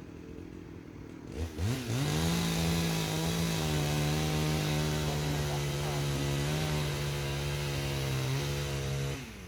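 Chainsaw ticking over low, then throttled up about a second and a half in and held at a steady high speed for about seven seconds before dropping back just before the end.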